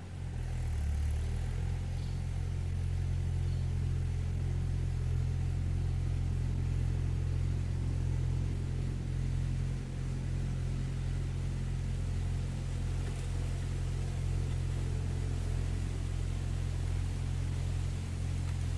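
Tractor engine running steadily under load while ploughing a paddy field: a low, even drone that comes up about a second in.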